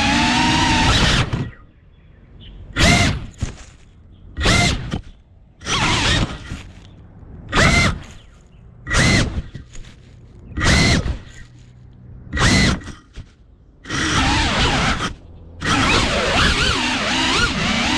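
FPV drone's electric motors whining in short throttle punches, about one every second and a half, with steady running at the start and again near the end.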